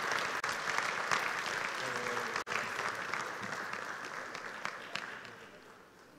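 Audience applauding, the clapping dying away over the last second or so.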